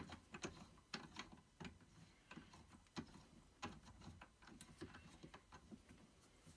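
Faint, irregular clicks and light knocks, more than a dozen, thinning out toward the end: handling sounds from swapping a small wooden bowl into a lathe chuck.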